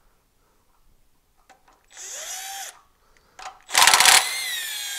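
Cordless drill spinning a socket to back out the ignition coil bolts on a Honda GX390 engine, in two short runs: a brief, quieter one about two seconds in and a louder, longer one near the end.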